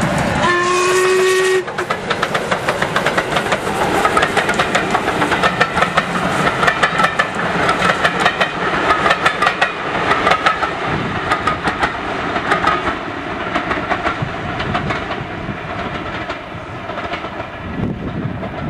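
A steam locomotive hauling a train of coaches goes past. It gives one short whistle blast about half a second in. After that comes a rapid beat of exhaust and the clatter of the coaches' wheels over the rail joints, easing off near the end.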